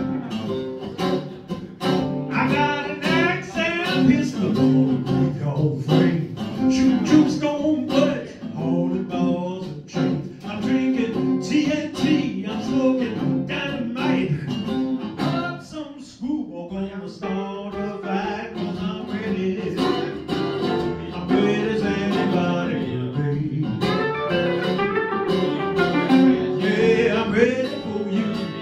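Two acoustic guitars played live, picked with many plucked notes, with a singing voice over them.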